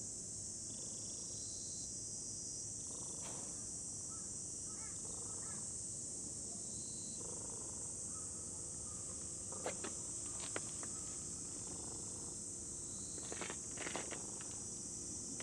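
Steady high-pitched drone of insects calling, with a few short sharp clicks and rustles about two-thirds of the way through and again near the end.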